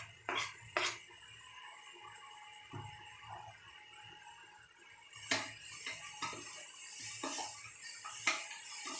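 A metal spoon knocks against a cooking pan twice, then from about five seconds in onions sizzle louder in hot mustard oil, with the spoon clinking against the pan now and then as they are stirred.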